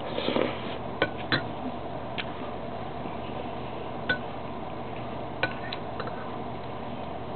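Cutlery clicking and clinking against a dish or glass a handful of times at irregular intervals, over a steady background hum.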